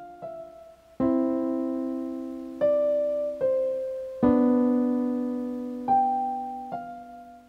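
Background music: a slow piano piece, with chords struck about a second in and again past four seconds and single notes between, each left to ring and fade.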